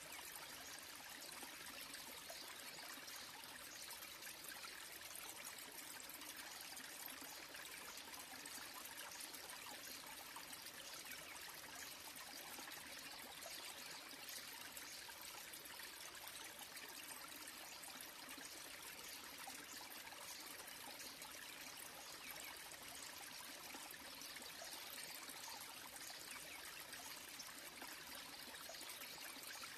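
Small waterfall trickling and splashing steadily down mossy rocks into a shallow pool, an even rushing with no changes.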